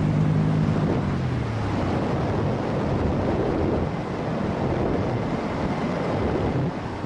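Airflow buffeting the microphone of a camera carried on a paramotor in flight: a steady rushing wind noise. Background music fades out about a second and a half in.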